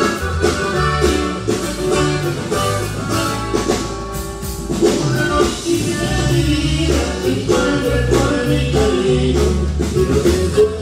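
Live norteño band music: accordion and bajo sexto playing over a steady, stepping bass line and a regular beat, with a voice singing.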